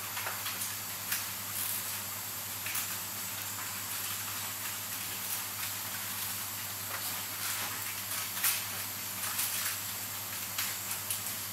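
Metal tweezers clicking and tapping lightly against the parts of a Seiko 7S26B automatic watch movement during assembly: small, irregular clicks, the sharpest about eight and a half seconds in, over a steady hiss of room noise.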